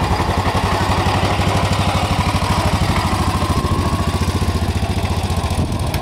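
BMW Isetta bubble car's single-cylinder four-stroke engine running at low speed as the car pulls away, a rapid, even exhaust beat.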